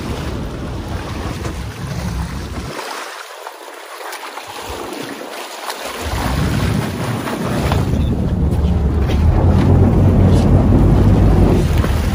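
Wind buffeting the microphone over rushing water from a boat under way on open sea. The low rumble drops out briefly a few seconds in, then returns louder for the rest.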